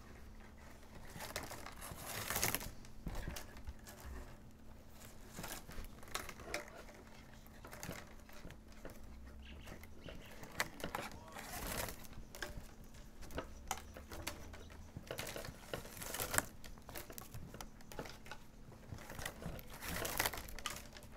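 Plastic baling straps rustling and crinkling as thin strips are pulled through and wrapped around a basket handle, with a few louder scrapes and clicks.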